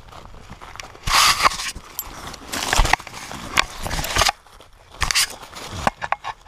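A dog rolling on its back in dry leaf litter: leaves crunching and crackling and its harness-mounted camera scraping against the ground, in irregular bursts.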